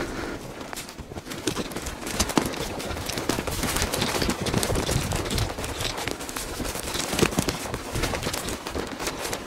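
Footsteps crunching over dry brush and twigs as someone walks toward the blast site carrying the camera, with irregular crackles and rumbling handling noise.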